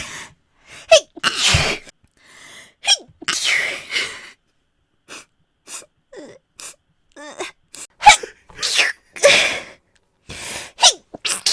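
A woman sneezing again and again, about half a dozen sharp sneezes a second or two apart, with short quick breaths in between.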